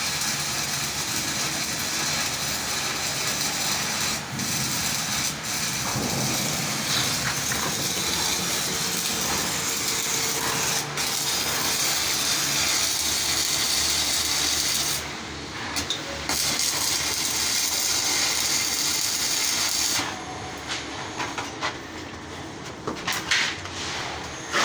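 Stick (shielded metal arc) welding arc crackling and sizzling steadily as a root pass is run on steel pipe with a 7011 electrode. The arc breaks off briefly about fifteen seconds in, then runs again and sputters on and off near the end.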